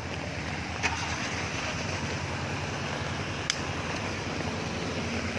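Steady rushing noise of fast-flowing brown floodwater mixed with the low running of an off-road vehicle's engine. Two sharp clicks, about a second in and again about three and a half seconds in.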